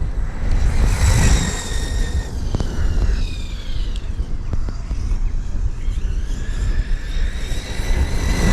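High-pitched whine of a ZD Racing Pirates 3 RC car's 4585 1580 kV brushless motor and drivetrain on a speed run. The whine rises about a second in, falls away in pitch as the car slows, and rises again near the end. The motor runs smoothly with no cogging, and heavy wind buffets the microphone throughout.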